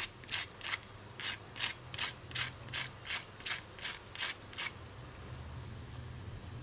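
Fork tines rasping on the crisp fried crust of a chana dal vada, a dry crunchy crackle about three times a second. It stops about four and a half seconds in. The crackle is the sign of how crispy the pakora is fried.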